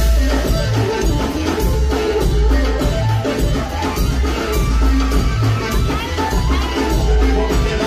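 Live stage band playing up-tempo dance music, with drums and a heavy, pulsing bass beat.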